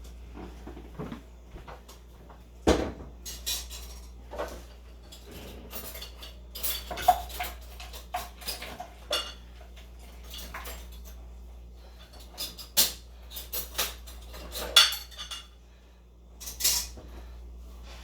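A metal spoon and pots clinking, scraping and knocking in irregular bursts, with a steady low hum underneath.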